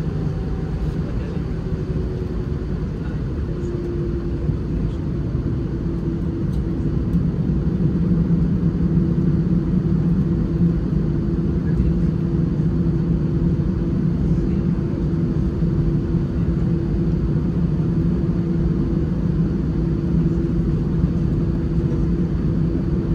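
Airbus A319's CFM56 engines heard from inside the passenger cabin at low power while taxiing: a steady low rumble with a steady hum. The sound gets a little louder about four to eight seconds in as thrust comes up slightly.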